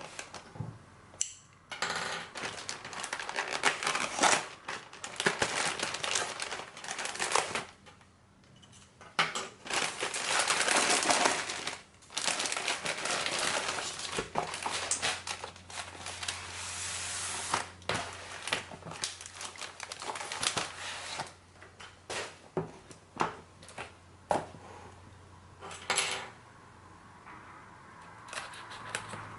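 A keyboard being unboxed by hand: a cardboard box and its packaging rustling and sliding in long stretches, broken by many sharp clicks and knocks as parts are handled and set down.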